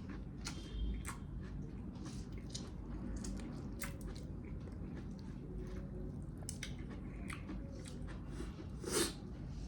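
Close-up mukbang eating: a person chewing mutton, with many short wet clicks and smacks of mouth and meat. A louder smack comes near the end.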